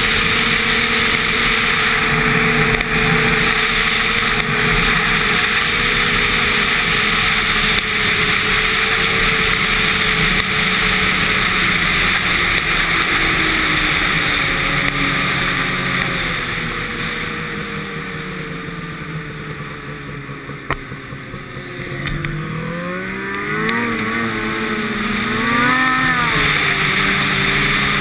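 Snowmobile engine running at trail speed, with wind and track noise. About two-thirds of the way through, the engine note drops and quietens as the throttle eases off, with a single click at its lowest. It then revs back up with a rising whine and settles at speed again.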